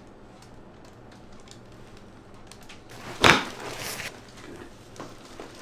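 A single sharp thump about three seconds in, followed by a brief hiss, from a chiropractic adjustment thrust on the treatment table. Faint small clicks come before it.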